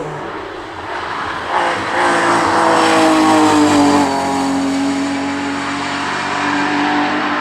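Hill-climb race car's engine at high revs going past, swelling to its loudest about three to four seconds in while its pitch slides down, then running on steadier and a little quieter.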